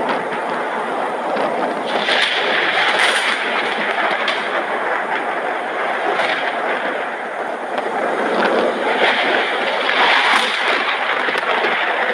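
Thunderstorm: a continuous rushing noise of rain and rolling thunder that swells louder about two seconds in and again around ten seconds.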